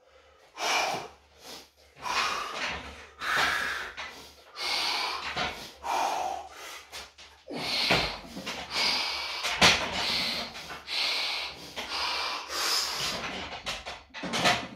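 A weightlifter taking hard, forceful breaths about once a second while bracing under a loaded barbell before a heavy squat. A couple of sharp knocks sound around the middle of the run.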